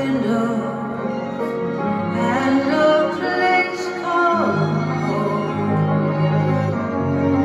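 Live music with no lyrics sung: held chords under a melody line that slides down in pitch about four seconds in.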